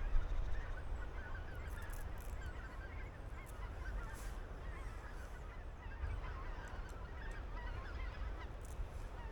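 A flock of birds calling without pause, many short calls overlapping, over a low rumble of wind.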